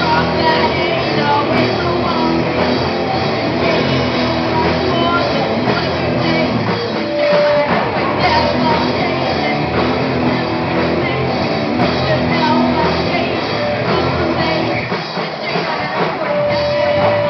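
Live rock band of two guitars, bass guitar and drums playing loudly, with a voice singing over it.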